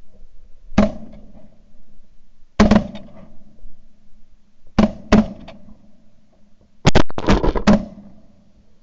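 Shotgun blasts recorded from a barrel-mounted camera: single shots spaced a couple of seconds apart, two in quick succession about halfway, then a rapid volley of several near the end.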